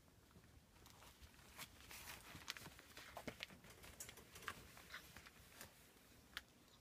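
Faint, scattered rustling and clicking of rough collie puppies' paws and claws moving over newspaper.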